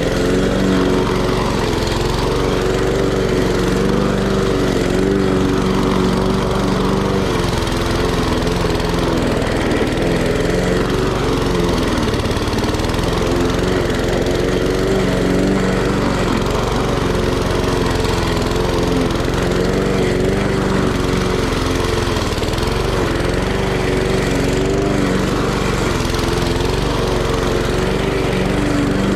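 Gasoline walk-behind push mower running steadily while cutting tall grass, its engine pitch wavering a little under the changing load.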